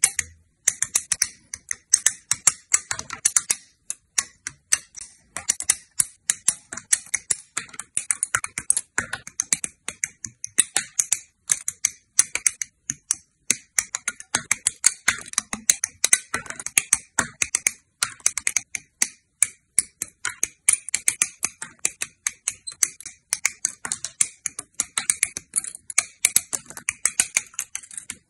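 Hobby nippers snipping plastic model-kit parts off their runners, a rapid, continuous run of sharp clicks and snaps.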